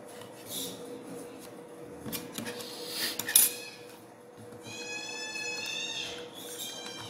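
Plastic clicks and knocks as a 2.5-inch WD Blue laptop hard drive is pressed back into the plastic frame of a WD My Passport enclosure, with a sharp click about three seconds in. A high-pitched call lasting about a second and a half follows near the middle.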